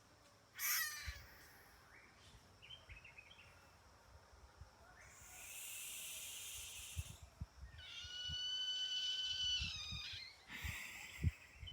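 Hyraxes calling back and forth: a sharp squeal about half a second in, a few small chirps, then a long airy hiss like leaking air, followed by a drawn-out, level-pitched whistling squeal and another short hissing call near the end.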